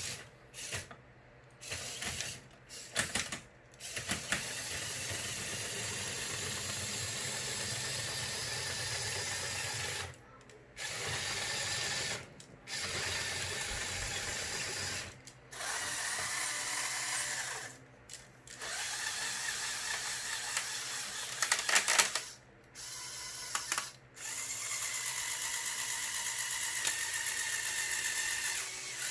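Small electric motors and plastic gearing of a Lego Technic Liebherr R9800 excavator model whirring as its functions are driven, in stretches of a few seconds that stop and start again. A few sharp plastic clicks come in the first few seconds and again about two-thirds of the way through.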